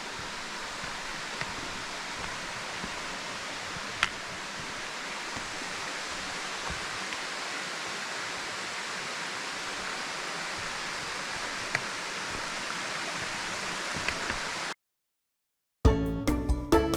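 Waterfall rushing steadily. It cuts off suddenly near the end and background music begins.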